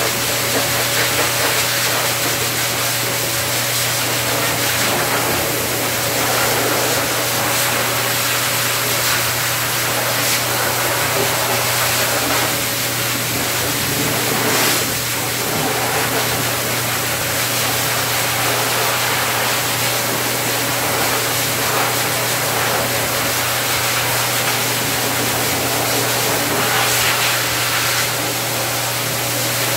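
Pet grooming blower dryer running steadily: a loud, even rush of air from the hose nozzle over a constant low motor hum.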